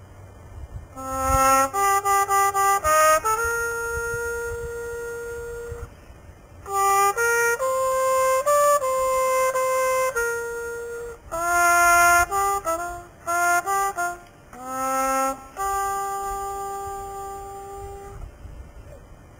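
Solo trumpet playing jazz phrases: quick runs of short tongued notes alternating with long held notes, with short pauses between phrases.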